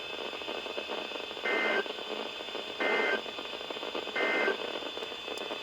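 Emergency Alert System end-of-message code: three short two-tone digital data bursts, evenly spaced a little over a second apart, marking the end of the warning. They sound over a steady radio hiss.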